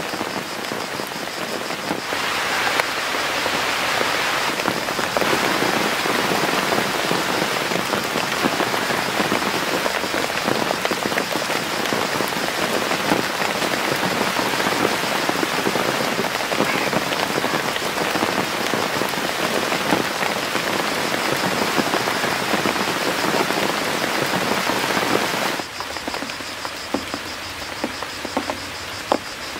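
Steady rain pattering, a dense crackling hiss that gets louder about two seconds in and drops back about four seconds before the end.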